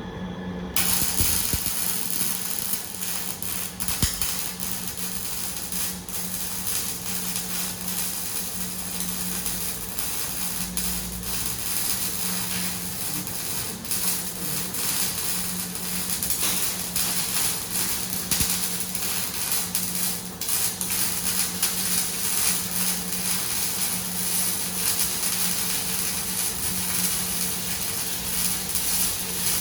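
Semi-automatic (MIG/CO2) arc welding: the arc strikes about a second in and then crackles steadily, with a constant electrical hum from the welding machine underneath.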